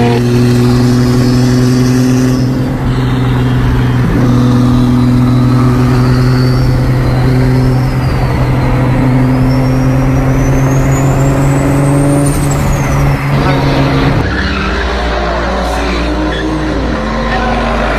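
A sports car's engine drones at a steady, nearly constant speed while pacing alongside, with a thin high whine rising and then falling partway through. After a cut about 14 seconds in, a BMW sedan drifts, its engine revving as the tyres skid.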